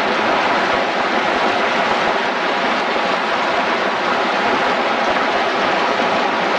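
Fast mountain creek rushing over rocks and logs: a loud, steady wash of white water.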